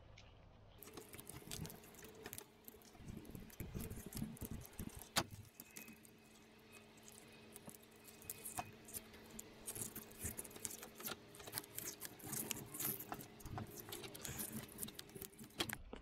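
Electrical tape being unwound and wrapped around a wiring connector and its corrugated plastic loom: faint crackling and rustling with small plastic clicks. A low steady hum runs underneath.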